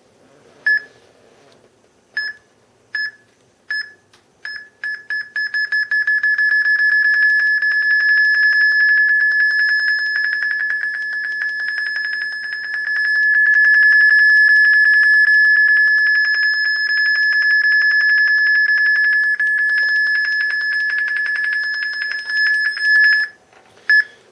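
Phone EMF-meter app sounding its alarm while it sits on a subwoofer. Its short high beeps come faster and faster and about six seconds in merge into one continuous tone, which cuts off near the end. The steady alarm means the meter is reading a very strong magnetic field, around 18,000 milligauss.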